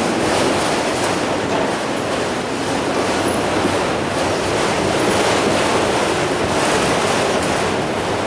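Freight train of autorack cars rolling past close by: a steady rumble and clatter of steel wheels on the rails, with a few brief faint high squeals.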